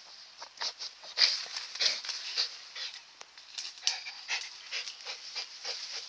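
A dog digging hard in soil under leafy plants with its nose in the hole: a quick, irregular run of scratching, rustling and snuffling, with the dog panting.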